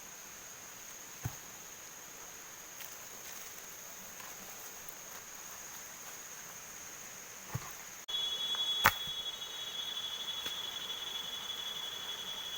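Night insects trilling in a steady, high-pitched chorus, with a few soft knocks. About eight seconds in the sound cuts abruptly, a lower steady insect trill joins, and a sharp click follows, the loudest moment.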